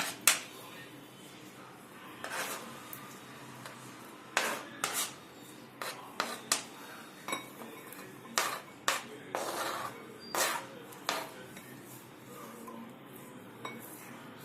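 Spoon and bowl clinking and knocking irregularly, with a few short scrapes, as chopped vegetables are added to a mixing bowl.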